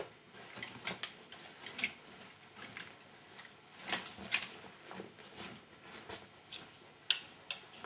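Clothes hangers scraping and clinking along a metal clothes rail as garments are pushed aside: a run of irregular clicks and rattles, with the sharpest click about seven seconds in.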